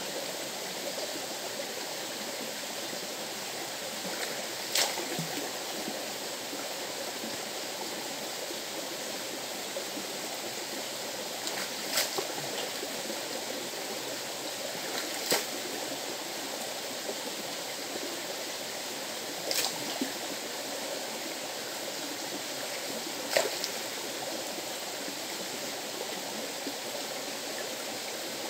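River water rushing steadily over rocks, with five sharp knocks spread through, the clearest about a third of the way in and near the end.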